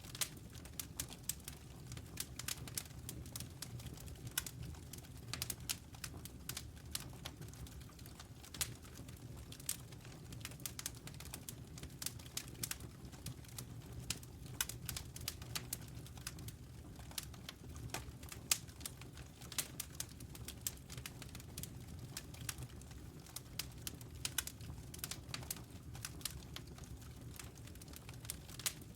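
Wood fire crackling: many irregular sharp pops and snaps over a steady low rumble of the burning fire.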